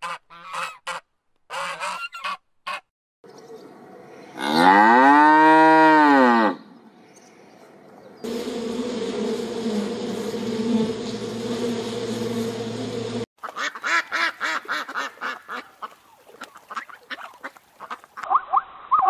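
A run of animal sounds. First a few short duck quacks, then a loud call of about two seconds that rises and falls in pitch. Next comes about five seconds of a bee's steady buzzing, and last a rapid string of duck quacks.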